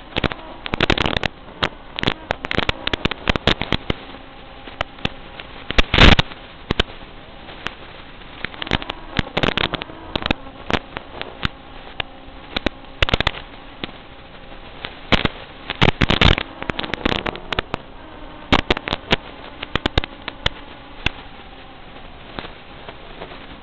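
Crackling static from an analog FPV video link, recorded by the goggles' DVR: irregular pops and short bursts of crackle over a faint steady hum.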